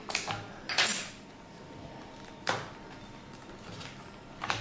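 Plastic clips of a tablet's back cover clicking and snapping as a thin metal pry tool levers the case open: a few sharp clicks at first, a louder crackling snap about a second in, then single clicks about midway and near the end.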